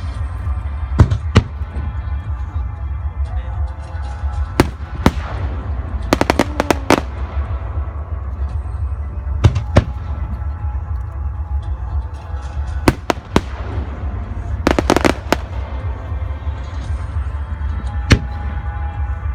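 Fireworks shells bursting: single sharp bangs every few seconds, with rapid strings of bangs about six seconds in and again about fifteen seconds in, over a steady low rumble.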